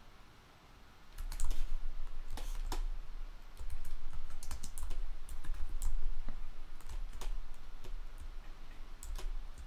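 Computer keyboard keys clicking irregularly as shortcuts are typed, starting about a second in, with a low rumble underneath.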